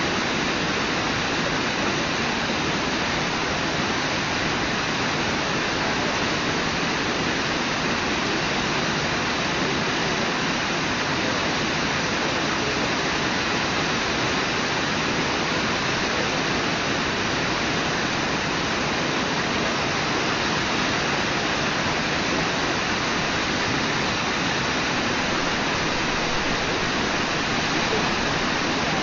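Brooks River whitewater rushing over rocks at the falls, a steady, even roar that never changes.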